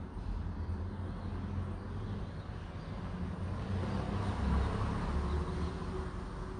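Low, steady background rumble that swells a little past the middle and eases off near the end, with no speech or music.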